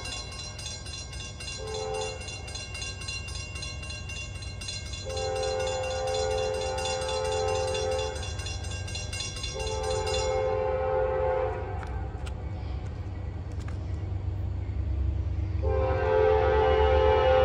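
Approaching freight train's multi-note air horn sounding a short blast about two seconds in and long blasts around five, ten and sixteen seconds in, the last one the loudest. Under it a grade-crossing bell rings rapidly until it stops about ten seconds in, and the locomotives' low rumble grows toward the end.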